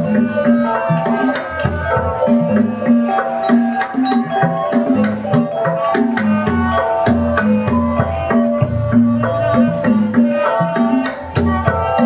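Traditional-style dance music with hand drums beating a steady, busy rhythm under a melody of pitched instrument notes.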